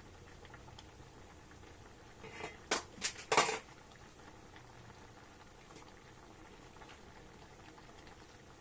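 A pot of vegetable soup simmering faintly, with three sharp clatters of kitchen utensils bunched together about three seconds in.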